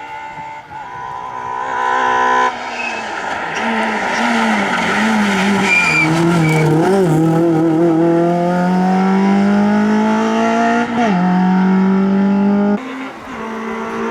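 Peugeot 106 rally car engine driven hard, its pitch climbing steadily as it accelerates, with a quick drop and recovery at a gear change about eleven seconds in. The sound changes abruptly about two and a half seconds in and again near the end.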